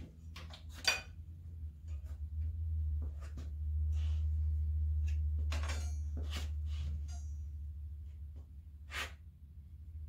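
Battery-and-coil ignition on a hit-and-miss engine being hooked up and tested for spark: a steady low hum, with scattered sharp clicks and snaps as the leads are handled.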